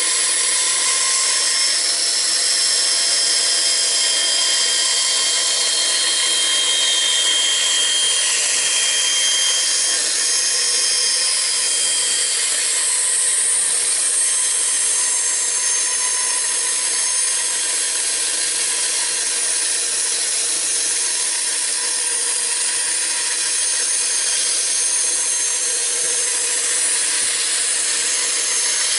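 Bandsaw running and its blade cutting a circle out of a wooden block, a steady sawing noise throughout. High whining tones in it slide slowly in pitch as the cut goes on.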